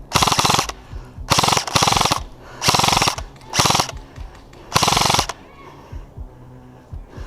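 Airsoft electric gun (AEG) firing on full auto in six short bursts of rapid, mechanical clicking shots over the first five seconds, then stopping.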